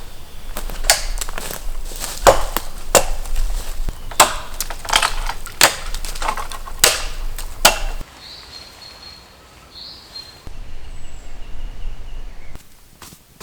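Axe chopping wood: a quick, irregular run of sharp, loud strikes for about eight seconds, then it stops. A bird chirps briefly afterwards.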